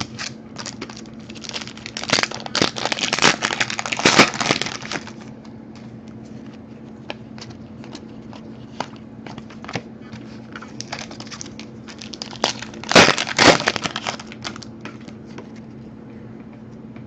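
Panini Prizm card pack wrappers being crinkled and torn open, in two bursts about two seconds in and again about thirteen seconds in, with light clicks of cards being handled in between over a steady low hum.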